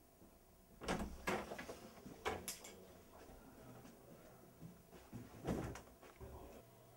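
A door and someone moving into a room: several light knocks and thuds, two pairs in the first three seconds and another about five and a half seconds in.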